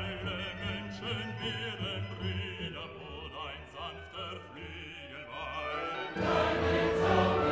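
Background music with a singing voice in a wavering, operatic vibrato. The music grows louder and fuller about six seconds in.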